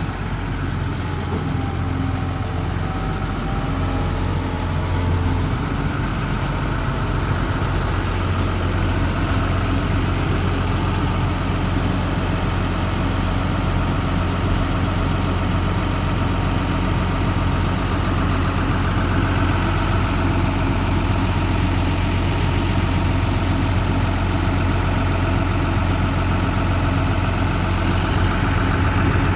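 Diesel engine of a John Deere 710K backhoe loader idling steadily at a constant speed.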